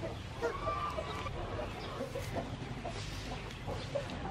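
Chickens clucking, with short calls scattered throughout.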